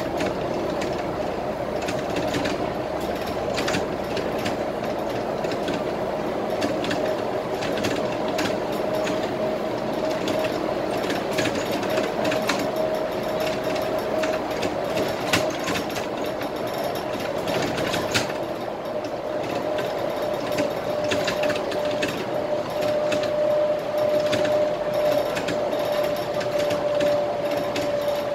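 Cabin noise of a Scania K320IA bus cruising on a highway: steady running noise with a steady whine, and frequent light rattles and clicks from the interior.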